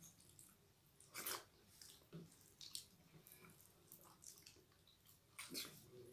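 Faint, scattered wet squishes and smacks of eating by hand: fingers working soft, starchy boiled rice on steel plates and mouths chewing. The clearest come about a second in and again near the end.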